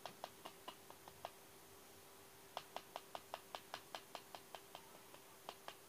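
Slime being stirred by hand in a small bowl: faint sticky clicks at an even pace of about five a second, stopping for about a second partway through and then starting again.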